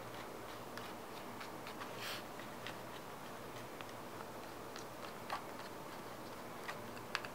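Faint scattered clicks and ticks of small pentalobe screws being picked up and driven with a screwdriver into a MacBook Pro's aluminium bottom case. There is a brief scrape about two seconds in and a sharper click a little after five seconds.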